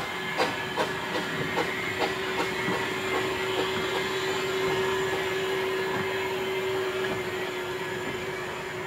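Narrow-gauge Baldwin 2-6-2T steam tank locomotive (replica No. 762 'Lyn') moving past at low speed. Its exhaust beats come about two and a half a second and fade after about three seconds. They give way to the steady running noise of its wheels and motion with a sustained ringing tone, loudest as it passes close.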